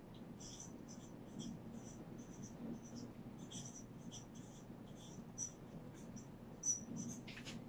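Whiteboard marker squeaking across a whiteboard as words are written: a faint run of short, high-pitched strokes, several a second.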